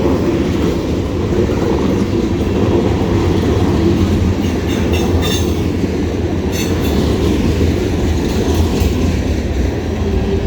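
Freight cars of a passing freight train rolling by, a steady heavy rumble of steel wheels on the rails with clickety-clack over the rail joints. There are brief high-pitched squeals about halfway through.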